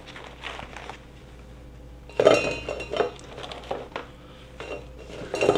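Crisp baked breadsticks clattering against each other and the inside of a stainless steel cylinder as a handful is stood upright in it, with a burst of clatter about two seconds in and a few lighter knocks after.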